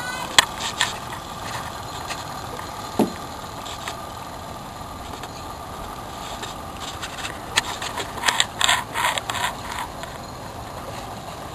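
Small motor boat's outboard engine running at a distance, a faint steady whine over a hiss that fades after the first few seconds. Clusters of sharp clicks and knocks come about eight to nine and a half seconds in.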